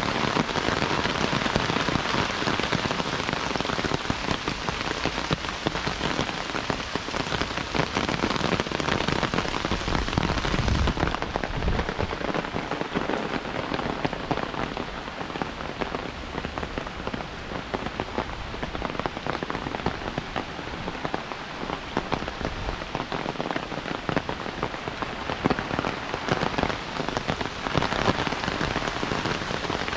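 Heavy rain falling steadily, a dense hiss of countless drops striking surfaces, easing a little in the middle.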